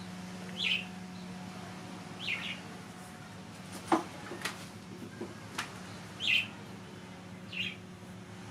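A small bird chirping four times, short high calls spaced a second or more apart, over a steady low hum. A few sharp clicks fall in the middle.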